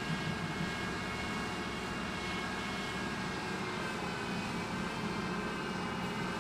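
Steady machine drone with several held tones over a pulsing low hum.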